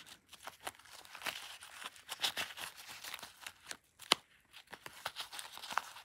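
Handling a Chums Surf Short zippered fabric wallet: irregular rustling and scraping of the fabric as a card is slid into its pocket, with small clicks and one sharper click about four seconds in.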